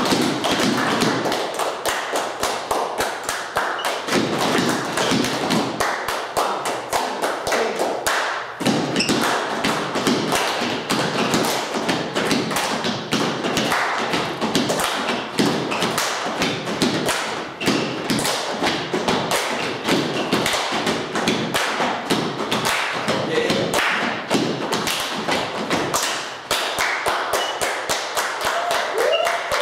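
Group body percussion with no instruments: several players clapping hands and stamping feet, a dense, rhythmic stream of quick taps and thumps several times a second.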